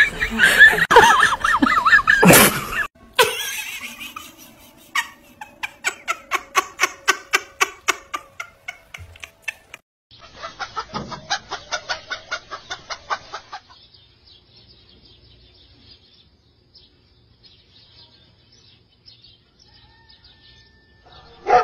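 A rooster clucking in quick, evenly spaced calls, in two runs through the first half, followed by a long quieter stretch with only faint clicks. A short loud burst of other sound opens it in the first couple of seconds.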